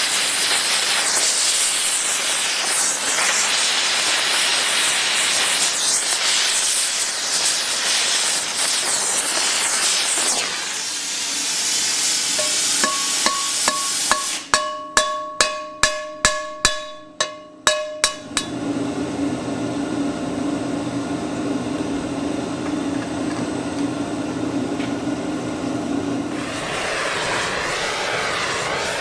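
Gas torch flame hissing steadily as it heats the rivet on a hand-forged sheet-iron skillet's handle. Then about a dozen quick hammer blows peen the hot rivet over the anvil, the pan ringing with each strike. After that comes a steady low hum, and near the end the torch hisses again as it heats the pan.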